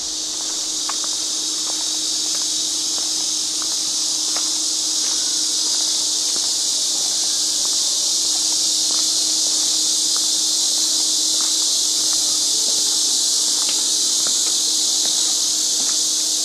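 A chorus of cicadas buzzing loudly and steadily, with a steady low hum underneath.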